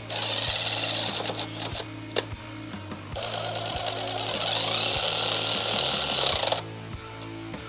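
A cordless impact tool hammering M8 bolts home: a short run of rapid impacts at the start, a few clicks, then a longer run of about three seconds from about 3 s in. Background music plays throughout.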